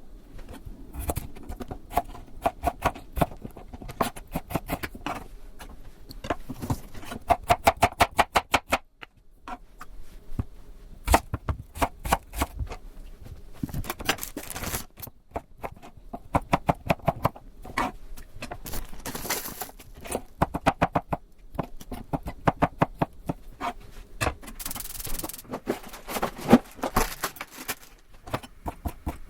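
Kitchen knife chopping on a cutting board in quick, even runs of strokes, about five a second, with short pauses between runs.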